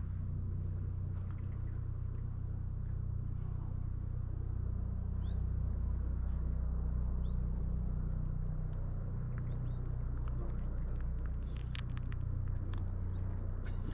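Outdoor ambience: a steady low rumble with faint, short bird chirps scattered through it and a few light clicks near the end.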